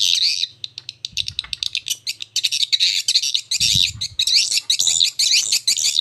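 Recorded swiftlet lure call played through a pair of horn tweeters: a shrill, fast twittering made to sound like swiftlets in courtship. It starts as scattered ticks and chirps and becomes dense, unbroken twittering from about two seconds in.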